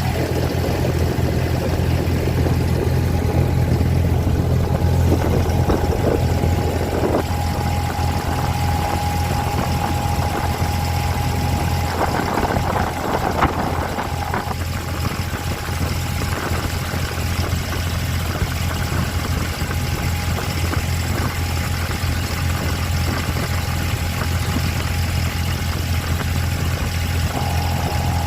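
Abra water taxi's diesel engine running steadily, a constant low drone with a thin steady whine above it.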